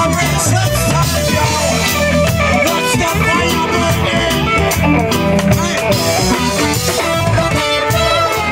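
A live band playing amplified through a PA, with electric guitar and drum kit over a steady rhythm.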